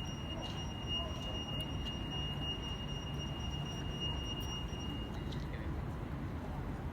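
A steady high-pitched electronic tone, like an alarm or buzzer, sounds over the low rumble of city traffic and stops about five seconds in.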